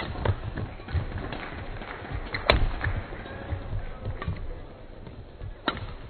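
Badminton rackets striking the shuttlecock in a doubles rally: sharp cracks every second or so, the loudest about halfway through, over quick low thuds of players' footsteps on the court.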